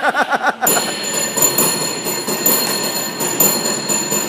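Cable car bell rung by hand in a fast, rhythmic pattern, strike after strike, each one renewing a bright ringing tone.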